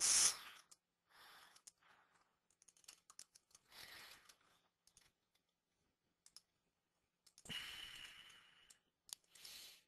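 Faint computer keyboard typing: scattered light key clicks as a short line of text is typed. A soft hiss, the loudest sound here, comes about seven and a half seconds in and lasts about a second.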